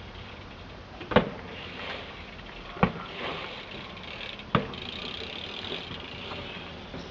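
Three sharp knocks, evenly spaced about a second and a half apart, over a steady background hiss.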